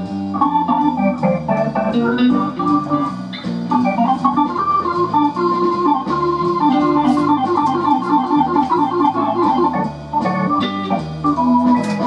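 A piece of music played through a loudspeaker driven by a TPA3122D2 class D amplifier kit running on one channel. Held notes sit over a stepping bass line with a steady rhythm. The amplifier sounds a little bit buzzy and somewhat distorted.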